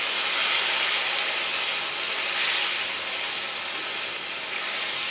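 Chopped tomatoes and spice masala sizzling steadily in oil in a nonstick kadhai as a spatula stirs them. The masala is being fried with a little water until the tomatoes soften.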